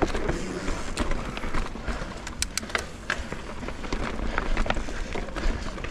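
Mountain bike rolling over a dirt trail strewn with dry leaves and twigs. The tyres make a steady crackling rush, broken by frequent sharp clicks and rattles from the bike.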